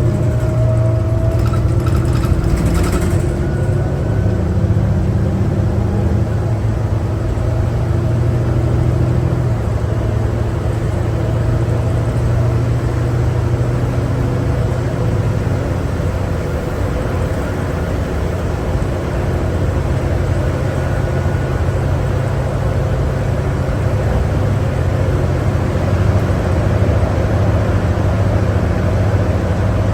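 Cummins ISL9 diesel engine of a New Flyer D60LFR articulated bus heard from inside the cabin while under way, a steady low drone over road noise, its pitch stepping a couple of times in the first third.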